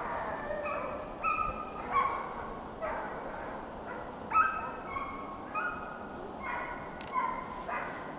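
Deer-hunting dogs barking and baying while running a deer, a string of short pitched barks, some overlapping, over a steady hiss of wind and rain.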